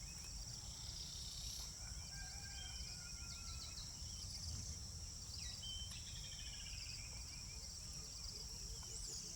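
Rural outdoor ambience: a steady high-pitched insect drone with several short bird chirps, whistles and trills scattered through it, over a low rumble.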